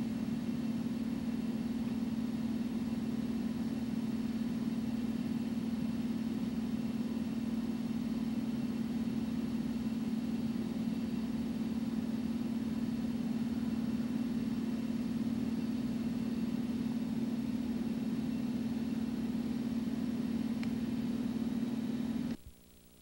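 A steady low hum that holds one pitch without change, then cuts off abruptly near the end.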